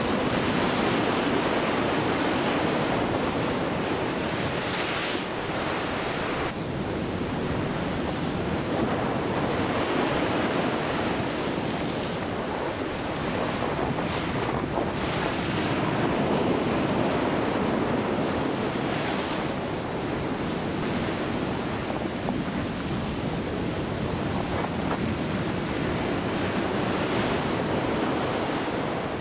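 Ocean surf and wind at a lava ocean entry, a steady rushing noise that swells and eases every few seconds, with wind buffeting the microphone.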